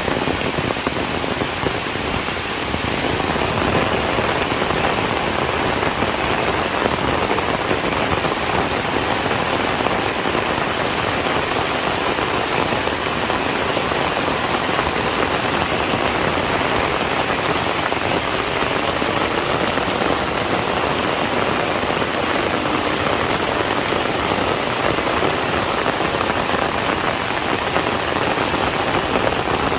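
Heavy rain falling steadily on a surface, a dense, even patter.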